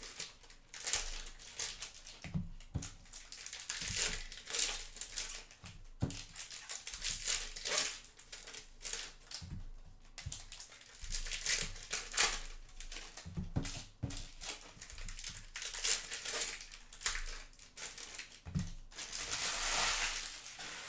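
Stacks of trading cards being handled and sorted by hand: repeated rustling and sliding of cards against each other, with a few soft knocks of the stacks on the table.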